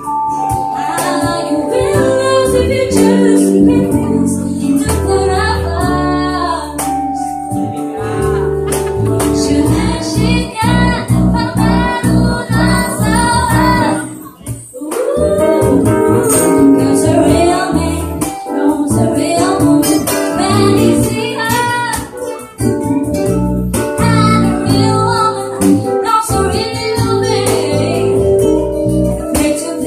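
A woman singing a slow R&B ballad live into a microphone, accompanied by acoustic guitar and electric bass guitar, with a brief break in the sound about halfway through.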